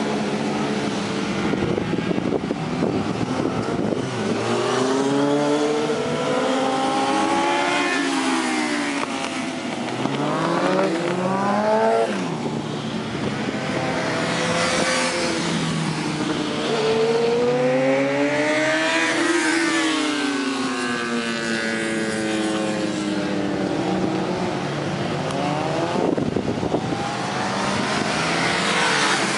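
Sport motorcycle engines racing on a circuit, their pitch climbing and falling again and again as the bikes accelerate out of corners, shift gear and pass by.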